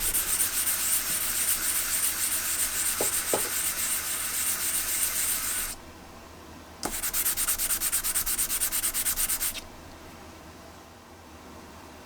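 A metal speaker badge rubbed in quick back-and-forth strokes on wet wet-and-dry sandpaper to polish off tarnish. It makes a rhythmic scratchy rasp, stops for about a second near the middle, starts again, and stops a few seconds before the end.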